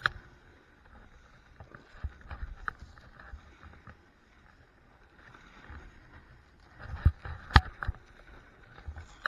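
A snowboarder floundering in deep powder after a fall: snow scraping and swishing against clothing and the body-mounted camera, with scattered clicks and a few sharp knocks on the camera about seven seconds in.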